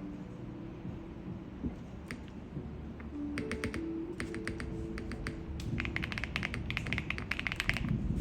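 Mechanical keyboard being typed on: a QK80 MK2 with SW x Keygeek Tori switches on an FR4 plate, fully foamed, with Candy Box keycaps. A few scattered keystrokes, a short burst about three and a half seconds in, then fast continuous typing over the last couple of seconds.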